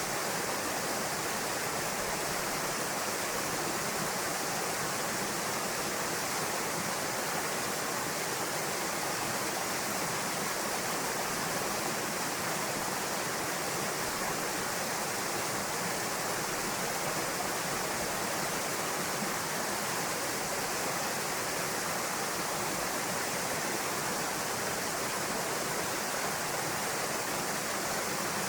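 Small waterfall pouring into a pool, a steady, even rush of falling water.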